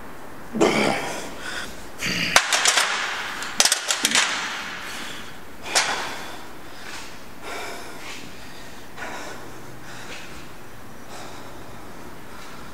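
A man's forceful breathing during a heavy lift: hard hissing exhales and snorts, loudest in a cluster about two to four seconds in with a few sharp clicks among them. Fainter breaths follow, a second or two apart.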